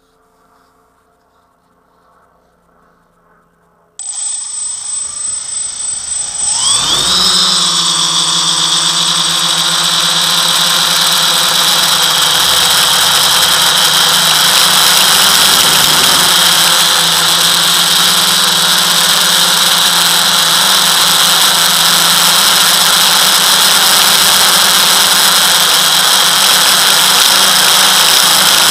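FPV quadcopter's electric motors and propellers spinning up: silent at first, then starting suddenly about four seconds in with a rising whine, and settling into a loud, steady, high-pitched buzz.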